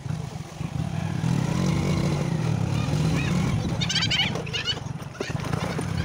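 Motorcycle engine running steadily while being ridden along a rough dirt track, with a brief high, wavering animal or bird call about four seconds in.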